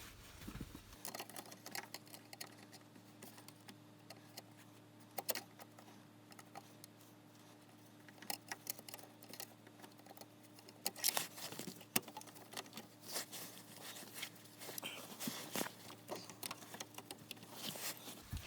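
Faint, irregular small metal clicks and taps of hand tools working on the steering unit's hydraulic line fittings, with a few sharper clicks past the middle.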